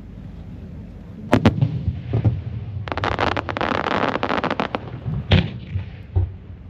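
Aerial fireworks display: several sharp shell bursts, with a dense run of crackling for about two seconds in the middle.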